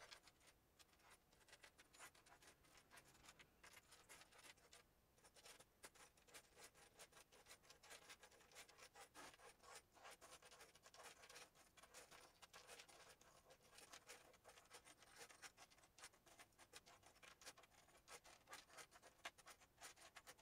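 Faint, irregular clinks and scrapes of metal swivel snap clasps being slid across a cutting mat and pushed into a pile by hand as they are counted.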